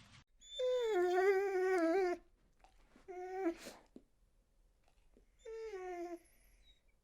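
A dog whining three times: one long drawn-out whine, then two shorter ones, each slightly wavering in pitch.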